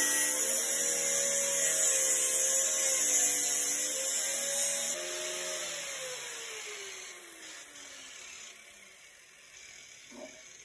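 Angle grinder grinding metal, its motor whining under load with a loud hiss from the disc. About five seconds in the cutting stops and the motor winds down, its pitch falling steadily for about four seconds.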